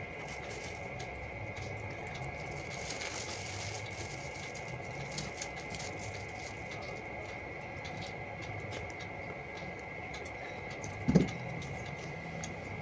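Foil paper crinkling and rustling in many small crackles as it is folded and pressed by hand. A single low thump sounds about eleven seconds in.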